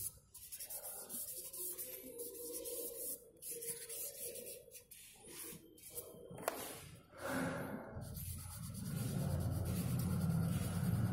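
Hand and charcoal rubbing and scratching irregularly on drawing paper as a charcoal portrait is blended and worked. A low hum comes up over the last few seconds.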